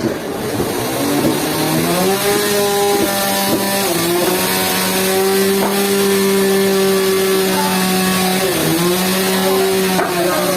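Sawmill saw drive running: a steady mechanical hum that rises in pitch over the first couple of seconds as it comes up to speed, then holds, with a brief dip in pitch about eight and a half seconds in.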